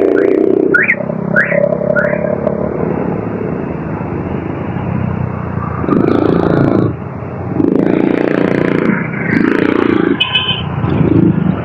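Motorcycle running on the road, its sound swelling and easing several times in the second half. A few quick rising chirps come near the start.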